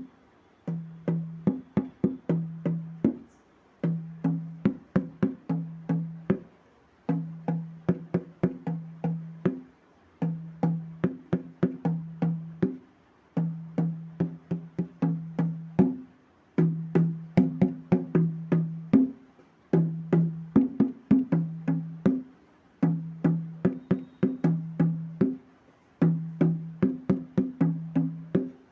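Dholak played by hand in a repeating rhythmic pattern: each phrase mixes deep, pitched bass-head strokes with quick, sharp treble-head strokes. The phrase repeats about every three seconds, with a brief pause between phrases.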